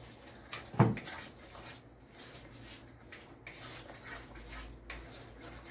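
Wooden spatula stirring sauce in a wok, with faint scraping strokes over a low steady hum. A single sharp knock sounds about a second in.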